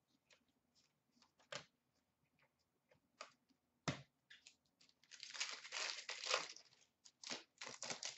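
Trading cards handled with light rustles and a sharp tap, then a card pack's wrapper torn open and crinkled for about two seconds starting about five seconds in, with a few more crinkles near the end.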